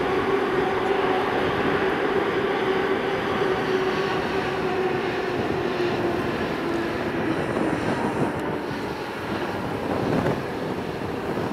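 Jet airliner engines running, a steady rushing noise with a humming tone that fades out about halfway through while the whole sound slowly gets quieter.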